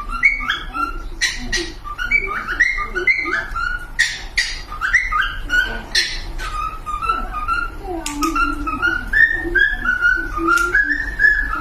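Cockatiels whistling and chirping: a continuous run of short whistled notes stepping up and down, broken by sharp chirps.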